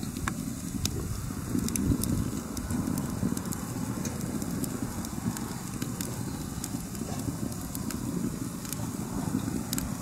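Split firewood burning in a metal fire pit, crackling with a few scattered sharp pops over a steady low rumble.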